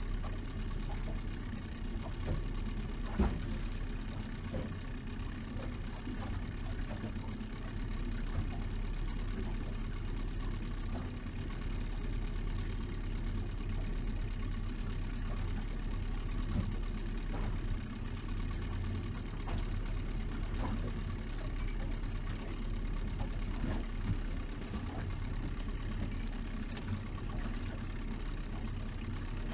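Outboard motor running steadily at slow trolling speed.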